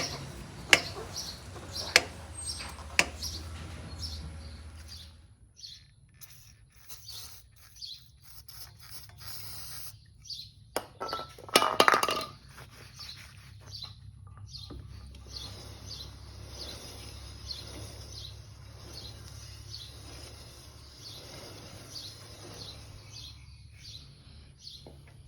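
Sharp clicks about once a second from a Harley-Davidson Dyna Switchback's wheel as the bike is pushed with the engine off, a clicking traced to a wheel bearing clogged with debris. About eleven seconds in comes a loud noisy burst lasting a second or two, and birds chirp faintly in the background.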